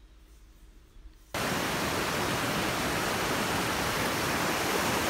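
Near silence for about the first second, then a mountain stream rushing over rocks cuts in suddenly as a loud, steady rush of water.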